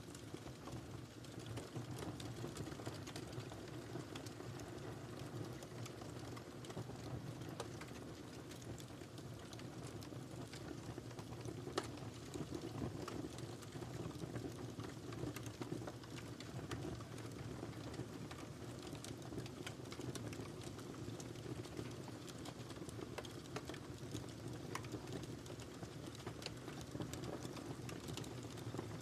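Wood fire burning in a fireplace: a steady low rush of flames with irregular crackles and pops throughout, one sharper pop about twelve seconds in.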